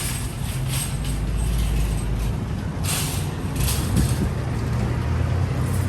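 Road vehicle noise: a steady low engine and road rumble, with a few short hisses over it, near the start and around the middle.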